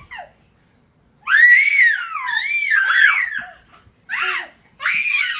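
Young children squealing and shrieking in high, wavering cries: a long squeal that rises and falls several times after about a second of quiet, then two shorter squeals near the end.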